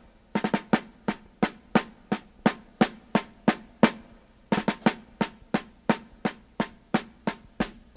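Snare drum playing a slow, steady march beat, about three strokes a second, with a few quick doubled strokes in the first second and again about halfway through.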